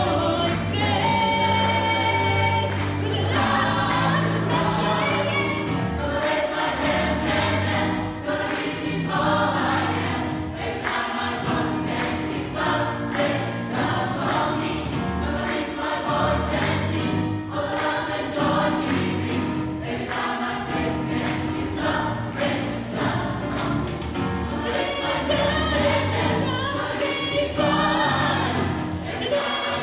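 Gospel choir singing in harmony over instrumental backing with a steady beat.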